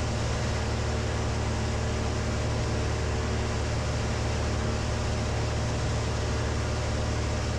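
Cessna 182's piston engine and propeller droning steadily in cruise flight, heard inside the cabin.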